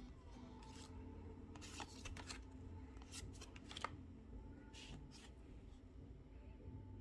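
Pokémon trading cards being flipped through by hand, each card slid off the front of the stack with a short papery flick. There are about six flicks, the sharpest near the middle, over a faint low hum.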